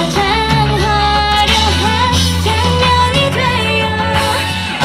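Live pop-rock band: a woman sings the lead melody into a microphone over drums and amplified instruments.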